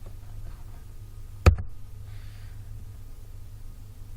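Steady low electrical hum in the recording, with one sharp click about a second and a half in.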